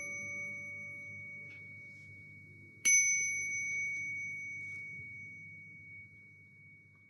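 A Buddhist ritual bell struck once about three seconds in, ringing on with a clear high tone that slowly fades. The ring of an earlier strike is dying away at the start, over a faint low hum that fades out.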